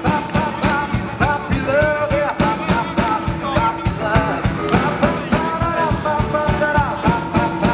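Live band playing an upbeat pop-rock song with guitars and drums, a voice singing over a steady, quick beat.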